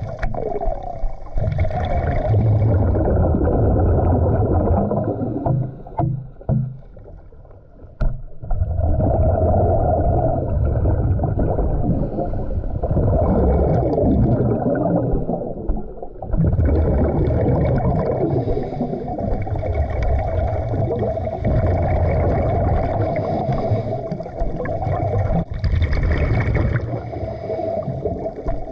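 Scuba regulator breathing heard underwater: long runs of exhaled bubbles gurgling, loud, with a quieter gap about six to eight seconds in and a sharp knock at its end.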